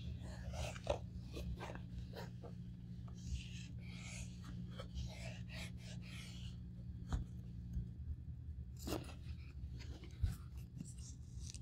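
Hands handling a grained-leather handbag: fingers rubbing, flexing and tapping the leather, with scattered soft clicks and scratchy rustles over a steady low hum.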